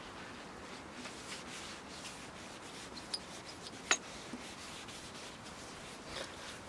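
Paper towel rubbing and buffing dried clarifying compound off a hazy plastic headlight lens: a steady scratchy wiping sound, with two short sharp ticks a little past halfway.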